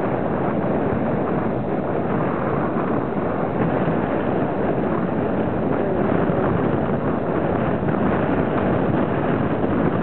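Wind buffeting the camera's microphone: a steady rushing noise.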